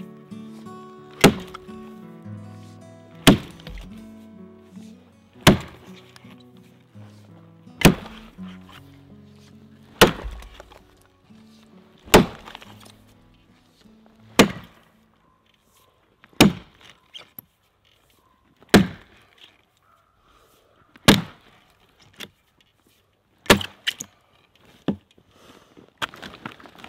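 Axe chopping through a downed log, about a dozen sharp wooden chops at a steady pace of roughly one every two seconds. Background music plays under the first half and fades out about halfway.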